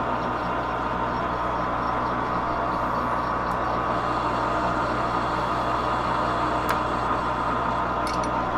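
Metal lathe running steadily, its spindle and chuck turning a rifle barrel: an even motor-and-gear hum with a steady whine. A couple of faint light ticks come late on.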